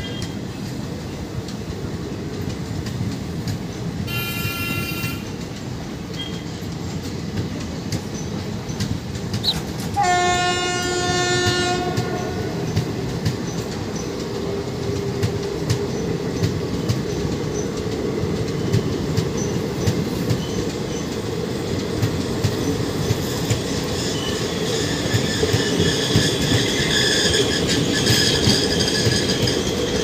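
Passenger train coaches running past on the rails, with steady clickety-clack of the wheels over the rail joints. A short, shrill train horn blast sounds about four seconds in and a longer, lower horn blast about ten seconds in. High wheel squeal rises in over the last few seconds.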